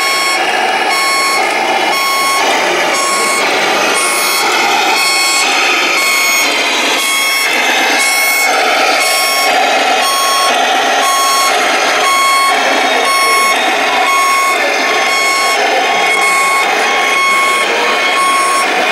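Electronic reversing beeper on a radio-controlled Scania T-cab tipper truck model, beeping steadily about twice a second over a continuous background of running noise.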